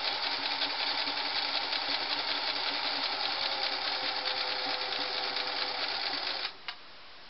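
Metal-geared Singer Model 347 sewing machine running steadily while stitching a close zigzag satin stitch through fabric. It stops suddenly about six and a half seconds in, followed by a single click.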